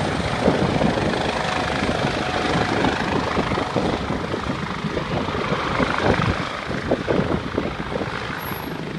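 Airbus Helicopters EC145 T2 air ambulance helicopter descending to land: steady rotor and twin-turbine noise with uneven pulsing, easing slightly toward the end.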